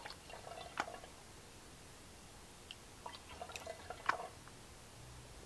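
Water poured from a glass measuring cup onto a coffee carafe's plastic lid, around its gasket, splashing and dripping in two short spells about three seconds apart.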